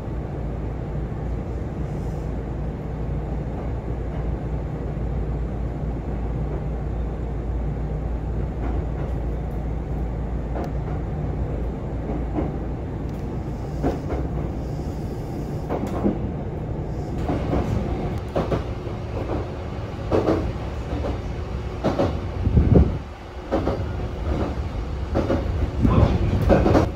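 Kintetsu 6400-series electric train heard from inside the car as it pulls away and runs: a steady low rumble of motors and running gear. In the last third, irregular clacks and knocks of the wheels over rail joints join it.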